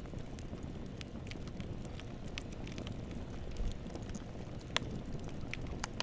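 Bonfire burning: a steady low rumble of flames with sharp, irregular crackles and pops from the burning wood, one loud pop near the end.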